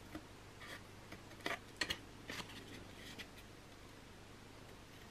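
Small craft scissors snipping cardstock: a few faint, short snips as the corners of small glue tabs are cut at an angle.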